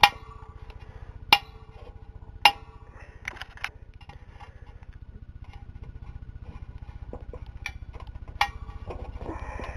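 Scattered sharp clicks and clinks as the rubber anode cap and its clip are worked loose on the glass bulb of a CRT picture tube. The loudest come about a second and two and a half seconds in, over a steady low hum.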